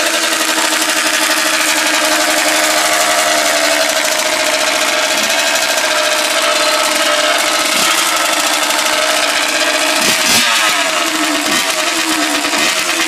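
Kawasaki KX100 dirt bike's two-stroke engine running loud and steady with the choke on and no silencer, its note rising briefly about ten seconds in.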